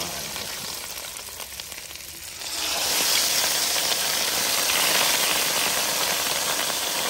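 Masala-coated fish pieces sizzling skin side down in hot mustard oil on a large iron tawa. The sizzle grows louder and brighter about two and a half seconds in and stays up.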